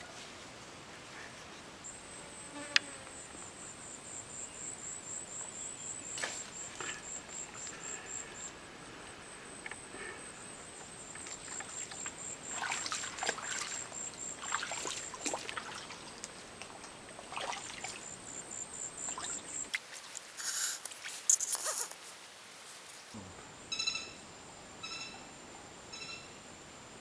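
An insect calling with a high, rapidly pulsed trill, stopping and starting, over short intermittent scraping or splashing noises. Near the end a different call repeats a little more often than once a second.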